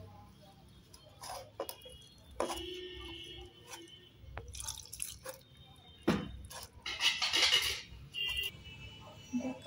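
A hand mixing gram-flour (besan) batter with water in a steel bowl: wet, irregular slapping and clicking sounds, with a louder splashy stretch about seven seconds in.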